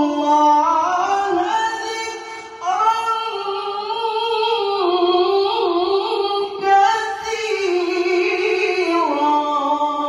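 A man reciting the Qur'an in the melodic tilawah style, singing into a microphone. He holds long, ornamented notes that glide up and down, in two phrases with a short break about two and a half seconds in.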